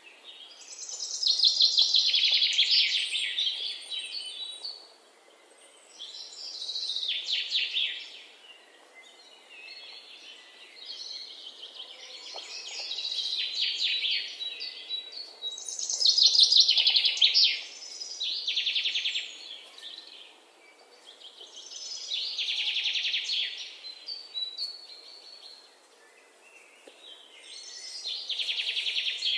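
A songbird singing: a short phrase of rapid trilled notes, each lasting two or three seconds and repeated about every five to six seconds, over faint background noise.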